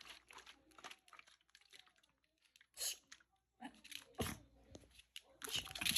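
Dog chewing and crunching on something, in faint scattered crunches, with a louder crunch about three seconds in and another just after four.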